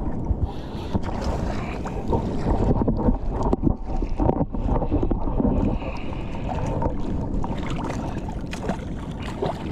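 Wind buffeting the microphone, with water sloshing and splashing around a wading angler and a few small knocks.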